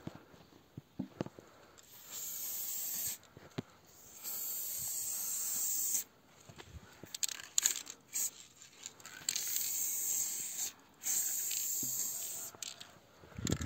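Aerosol spray-paint can hissing in four bursts of one to two seconds each, with short pauses and small clicks between them.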